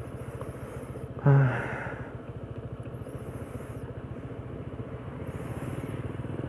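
Motorcycle engine idling steadily while the bike stands still, with a brief low voice sound about a second in.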